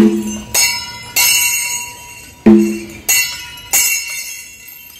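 Rhythmic percussion with ringing, bell-like metallic strikes. A deep pitched drum stroke falls about every two and a half seconds, with two jingling metallic strikes between each pair.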